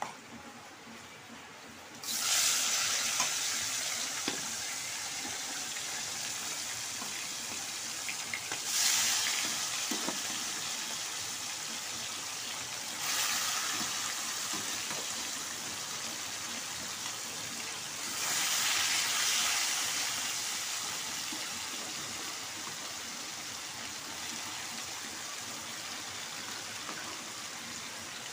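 Pieces of bhola fish frying in hot oil in a wok, a steady sizzling hiss that jumps up suddenly four times as more pieces are slid into the oil, each surge easing back down.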